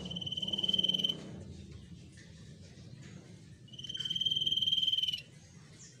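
A common iora gives two long, level whistled notes about three seconds apart, each swelling in loudness. The second note is longer.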